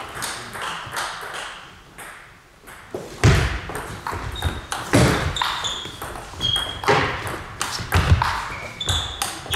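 Table tennis rally in a large hall: the ball clicking off bats and table in quick hits, with heavy thumps from the players' footwork on the floor. There is a brief lull about two seconds in, then the hits come thick and fast.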